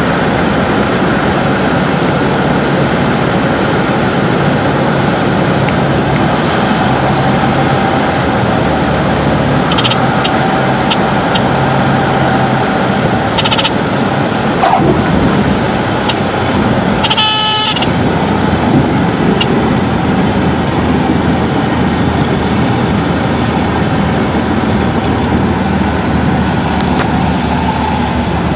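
Inside a Cessna 172's cabin: the engine and propeller running at low power with steady wind noise through the landing and rollout. A short pitched tone sounds for about half a second about two-thirds of the way through.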